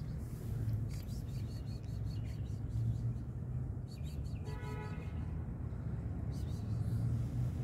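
A tabby cat crunching dry kibble, heard as scattered small quick clicks over a steady low rumble. A short pitched call sounds once about halfway through.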